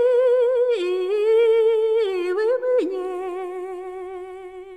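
A woman singing a Russian folk song unaccompanied, drawing out one syllable over several sustained notes with a wide vibrato. The last note is held and fades away near the end.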